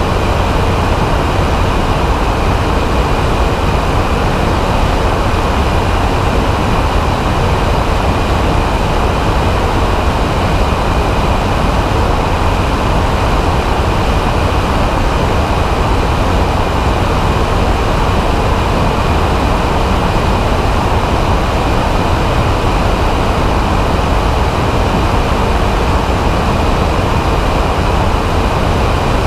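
Steady, loud drone of a weight-shift microlight trike's pusher engine and propeller in level flight, mixed with wind rushing over a wing-mounted microphone.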